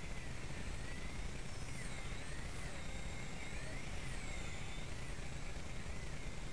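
Blade Nano micro RC helicopter's electric motor and rotors whining, the pitch rising and falling again and again as it manoeuvres, over a steady low rumble.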